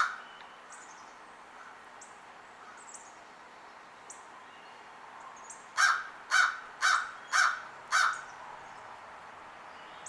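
A crow cawing: one caw right at the start, then five loud caws in quick succession, about two a second, a little past halfway. Faint high chirps of small birds sound in between.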